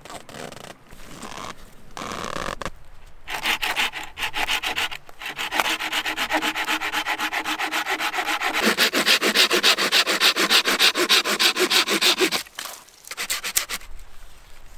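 Fast, rhythmic scraping strokes, about four to five a second, starting a few seconds in, growing louder and stopping suddenly near the end.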